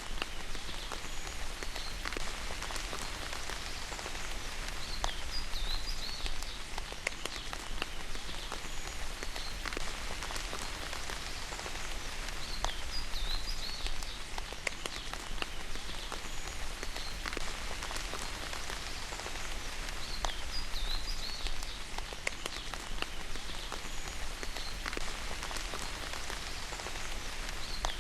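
Steady rain falling, with a dense patter of individual drops striking a surface. A short high chirp recurs every four seconds or so over the rain.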